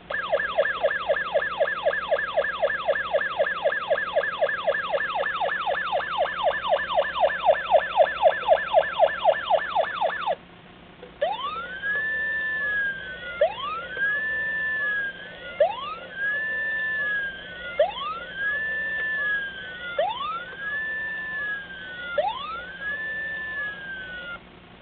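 Toy police car's electronic siren sound effect: a rapid yelp repeating about four times a second for about ten seconds, then after a brief break a slower wail that rises quickly and falls off, cycling about every two seconds.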